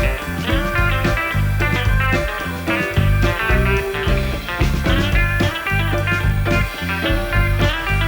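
Background music: a guitar-led blues-rock track with a steady bass and beat.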